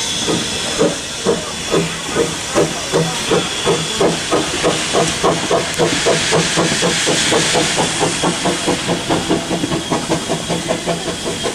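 Steam locomotive pulling away, its exhaust beats quickening from about two a second to four or five a second as it gathers speed, over a steady hiss of escaping steam.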